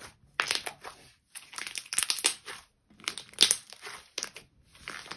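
Thick, glossy slime squeezed and kneaded by hand, giving irregular bursts of crackly, squelching clicks as small air bubbles pop inside it.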